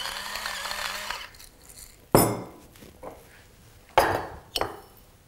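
A hand-twisted pepper mill grinding for about a second, then three sharp knocks as hard kitchen items are set down and picked up on the counter, at about two, four and four and a half seconds.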